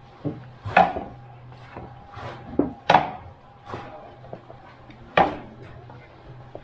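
Irregular sharp knocks, a second or two apart, over a steady low machine hum.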